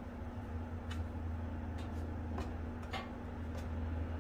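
A steady low hum with a few light, scattered taps from hands shaping pieces of bread dough on a wooden cutting board.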